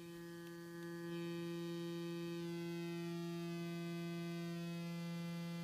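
Doepfer Dark Energy Mk I synthesizer oscillator sounding a steady pulse-wave tone while its pulse width is turned up from narrow pulses towards a square wave. The tone grows louder over the first second, then holds steady.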